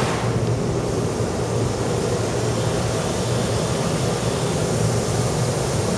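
Steady low machinery drone under a constant rushing hiss, the background noise of an offshore drilling rig's plant running.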